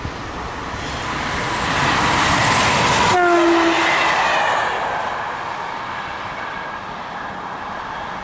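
Electric multiple unit passing close by at speed. The rail noise builds for about three seconds, its whine drops sharply in pitch as it goes by, and then the noise fades away.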